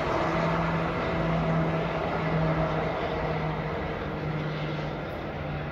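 A passing train: a steady hum over a broad rumble, slowly fading over the last few seconds.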